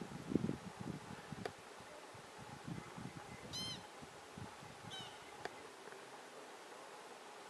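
American pika giving a short, high-pitched squeak about three and a half seconds in, rising and falling in pitch, followed by a fainter, shorter squeak a second and a half later.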